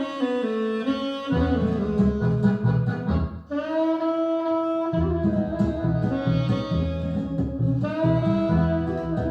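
Instrumental music played back through Monitor Audio Monitor 3 three-way floor-standing loudspeakers: a sustained lead melody over a bass line. The bass drops out for a couple of seconds about three seconds in.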